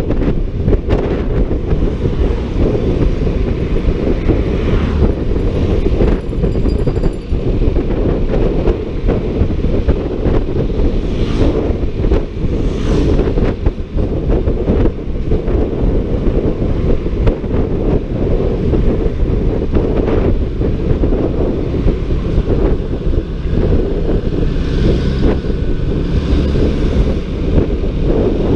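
Wind buffeting the microphone of a rider on a Honda ADV 150 scooter at road speed: a loud, steady low rush of noise.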